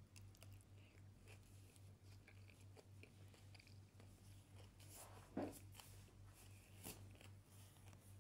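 Faint chewing and mouth sounds of a person eating chicken curry, scattered soft clicks, with a louder short sound about five and a half seconds in and another about seven seconds in, over a steady low hum.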